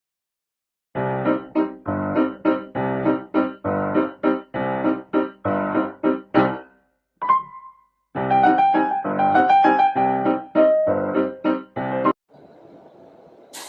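Piano playing repeated chords in a steady rhythm of about two a second, breaking off briefly near the middle and stopping about twelve seconds in.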